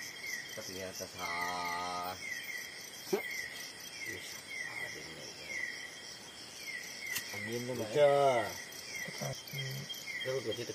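Insects, likely crickets, chirping: a short falling chirp repeated about twice a second. A brief held voice sound comes just after the start, and a louder voice sound about eight seconds in.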